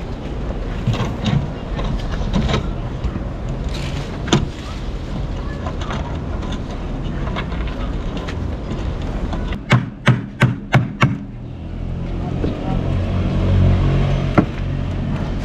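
Building-site sounds: a steady low engine rumble that grows louder in the last few seconds, with scattered knocks and a quick run of about five sharp knocks about ten seconds in, like hammer blows.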